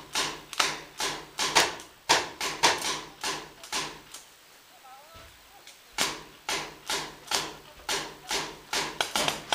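Paintball marker firing a rapid string of shots, about two to three sharp pops a second, stopping for about two seconds midway and then firing on.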